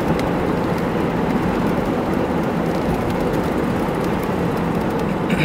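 Steady engine and road noise inside the cabin of a 1988 Buick Electra Estate station wagon cruising down a street, from its V8 engine and tyres.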